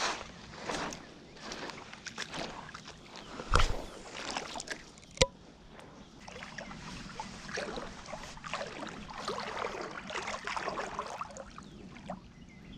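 Creek water sloshing and splashing irregularly, as when someone wades through shallow water, with a thump about three and a half seconds in and a single sharp click about five seconds in.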